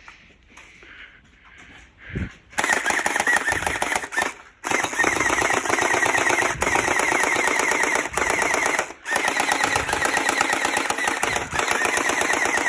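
Gel blaster firing on full auto: a fast, continuous mechanical rattle of shots in long bursts. It starts about two and a half seconds in and breaks off briefly twice, and it goes on until the blaster runs out of gel balls.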